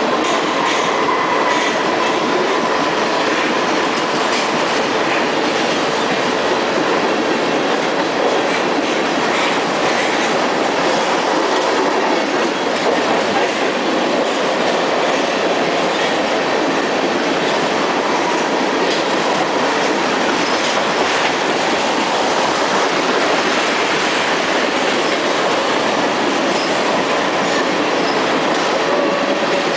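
Rail tank cars of a CSX freight train rolling past: a steady clatter of steel wheels on the rails, with faint thin wheel squeal coming and going.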